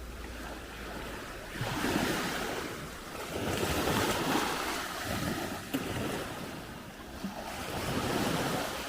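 Small sea waves washing in at the shoreline, swelling and fading every few seconds, with wind buffeting the microphone.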